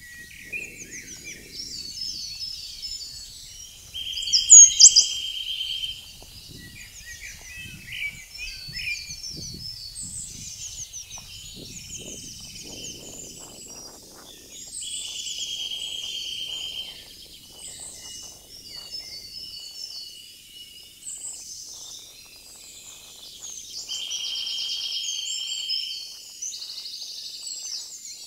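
Several woodland birds singing, with overlapping chirps and song phrases. A trill of about two seconds comes back three times, roughly every ten seconds.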